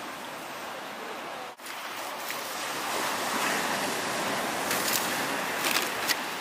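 Steady rushing noise, cut off for a moment about a second and a half in, then a wood campfire burning, with a few sharp crackles and pops near the end.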